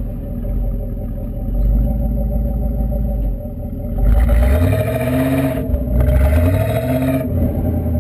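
1985 Pontiac Trans Am's V8 exhaust rumbling steadily, then revving up hard about halfway in: the pitch climbs twice with a short drop between, before settling back to a rumble near the end.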